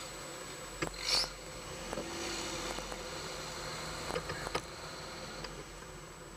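Muffled car running at low speed, heard through a sealed waterproof camera case, with a few sharp clicks and a short rustle about a second in.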